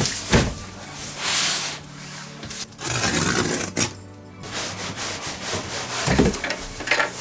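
Packaging being handled: several rubbing and sliding swishes, over background music.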